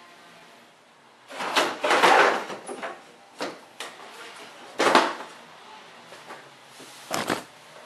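2008 Honda Odyssey radiator assembly being lifted out of the engine bay: a burst of scraping and rattling knocks about a second in, then single clunks at intervals as it bumps against the surrounding parts.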